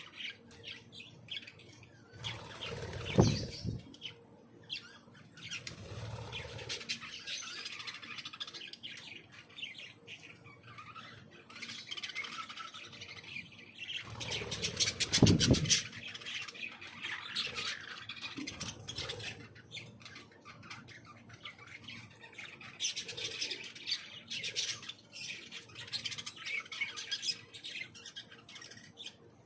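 A flock of aviary birds chirping and squawking almost continuously, with two louder bursts of noise about 3 and 15 seconds in.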